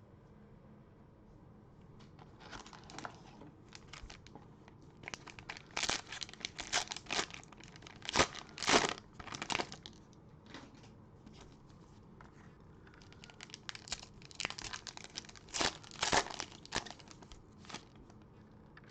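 Cellophane wrapper of a trading-card cello pack crinkled and torn open by hand, in two spells of quick crackling bursts with a short lull between them.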